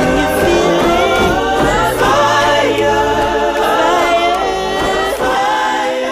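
Music: a choir singing in several voices, with a low bass part that drops away about halfway through.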